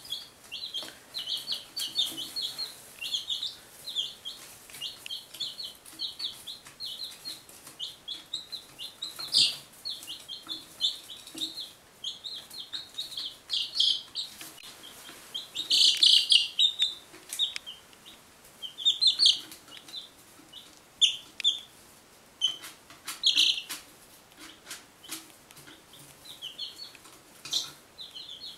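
One-week-old chicks (Buff Orpingtons, a Barred Rock and a Golden Laced Wyandotte) peeping without a break, a fast stream of short high peeps, loudest in a burst about halfway through. A few sharp clicks are scattered among the peeps.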